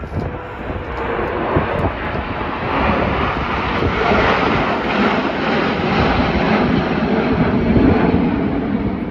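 A nine-jet formation, the Snowbirds' CT-114 Tutor jets, flying past with a steady rushing jet noise that swells to its loudest near the end.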